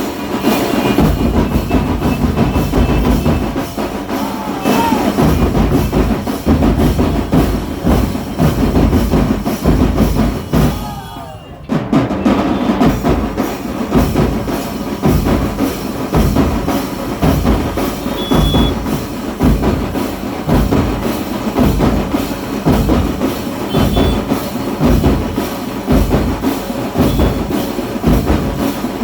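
Music with a steady drum beat and percussion, breaking off briefly just before halfway and then resuming.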